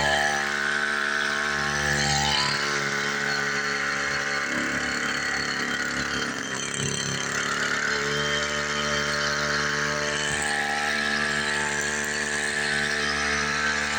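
Small engine of a motorized sprayer running steadily, its note going unsteady for a few seconds about midway before settling again.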